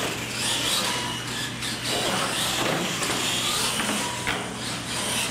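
Radio-controlled monster trucks racing side by side on a concrete floor: their motors whine, rising and falling in pitch as they accelerate, over the rush of tyres, with a few knocks as they cross the plywood ramps.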